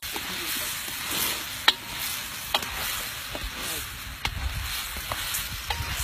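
Mutton masala frying in a pot with a steady sizzle, while a spoon stirs it, knocking against the pot in several sharp clinks, the loudest a little under two seconds in.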